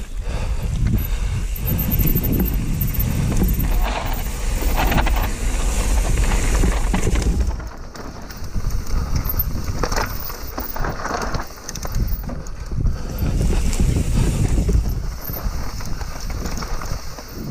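Mountain bike descending rock and dirt singletrack: wind buffeting the microphone, with tyre noise and the frequent knocks and rattles of the bike over rough ground.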